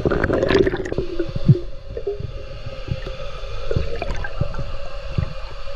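Underwater sound picked up by a GoPro in pond water: a gurgling burst of bubbles in the first second, then a run of dull, low thumps and knocks from the swimmer moving and pushing structures into the silty bottom.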